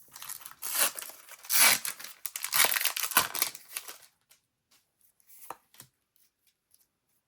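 A Disney Lorcana booster pack's foil wrapper being torn open and crinkled, lasting about four seconds, followed by a couple of light clicks as the cards are handled.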